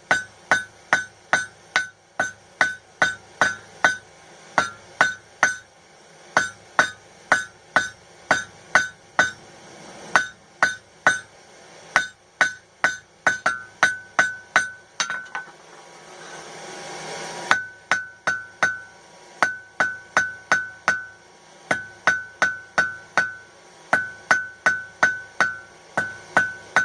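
Hand hammer striking hot steel on an anvil, about three blows a second, each with a high ring from the anvil, as a nail blank is squared and drawn down to a taper. The hammering stops for about two seconds past the middle, where a rising rushing noise is heard, then picks up again at the same pace.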